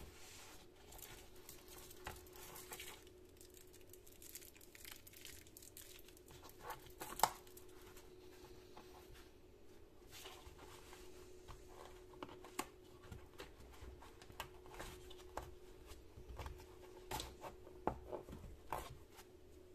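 Faint handling noise of insulated pliers and screwdrivers in a fabric tool case: rustling of the case and elastic straps with scattered small clicks and knocks of the tools, the sharpest about seven seconds in.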